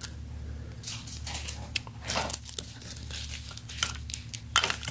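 Plastic crinkling and light clicks as sunglasses with a clear plastic protector sleeve on the arm and a plastic-tied price tag are handled, over a low steady hum.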